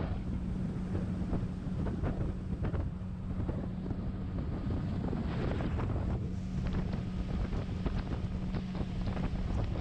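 Motorboat underway at a steady cruising speed, its engine holding a steady low drone over the rush of water along the hull, with wind buffeting the microphone.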